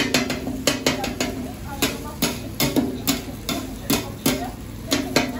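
Metal spatula chopping an egg and vegetable mixture on a flat steel griddle: a quick, irregular run of sharp metallic clacks, about three a second, each ringing briefly off the griddle plate.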